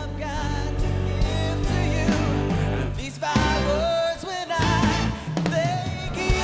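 Pop medley sung live: a man sings the lead line into a handheld microphone over band accompaniment.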